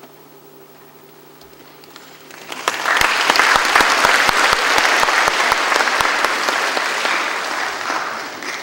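Audience applauding: a low hush, then clapping swells about two and a half seconds in and dies away near the end.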